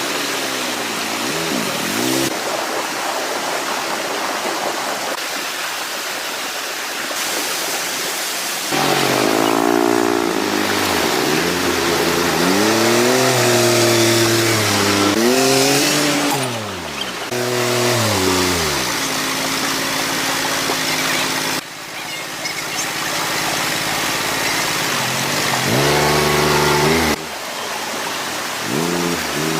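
A tractor engine revving up and falling back several times, over a steady hiss. The sound changes abruptly a few times.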